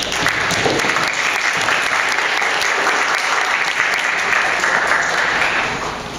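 Audience of children and parents clapping steadily, dying away near the end.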